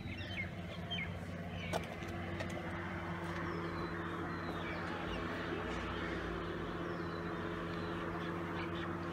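Birds calling now and then over a steady low mechanical hum with an even background hiss.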